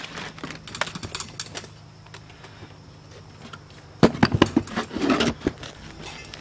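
Packing a wooden camp chest: light knocks and clicks as plates and gear are handled into it, then a loud knock and rattle about four seconds in as a wooden tray of small items is set in on top.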